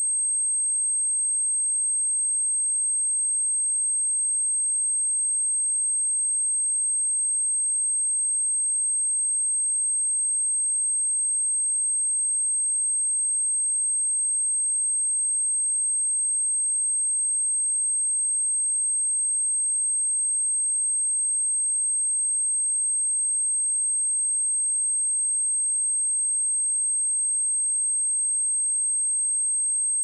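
Pure 8383 Hz sine-wave test tone: one high-pitched, unchanging whistle held at a steady level, the kind played to test speakers or shake water and dust out of them.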